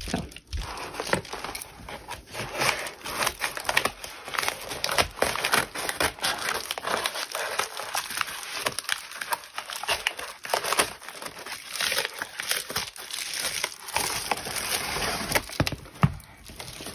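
Crinkling and rustling of a bubble-lined paper padded mailer as it is cut open with scissors and handled, a dense run of small crackles and clicks.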